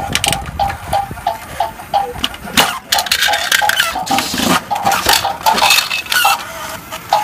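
Battery-powered Winnie the Pooh toy train running, its electronic sound repeating a short beeping tone about three times a second. Hard plastic clatters come in between about two and three seconds in, as a rider figure knocks loose.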